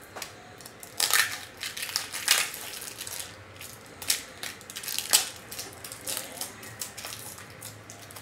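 Packaging around a baseball bat being torn open and crinkled by hand: a run of irregular crackling bursts, the loudest about one, two and five seconds in.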